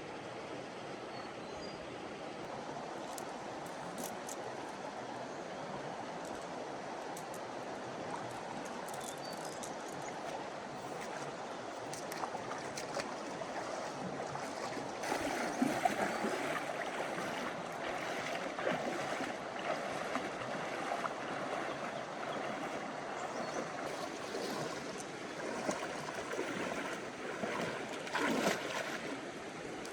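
Floodwater flowing steadily, with irregular splashing and sloshing that grows louder from about halfway through.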